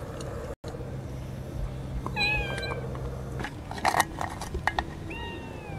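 Stray cats meowing: one meow about two seconds in and a longer, falling meow near the end, with a few short clicks in between.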